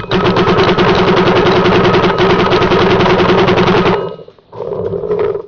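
GI Victus paintball marker firing reballs in a rapid, even string of shots for about four seconds, then stopping abruptly. A shorter, quieter sound follows near the end.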